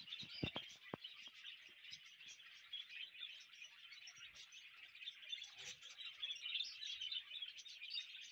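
A flock of budgerigars chattering, a dense, unbroken warble of chirps, with a few sharp clicks in the first second.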